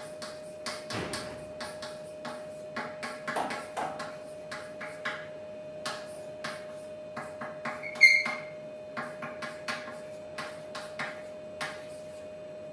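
Chalk tapping and scratching on a blackboard as words are written, in short irregular strokes. About eight seconds in, one much louder stroke with a brief high squeak of the chalk.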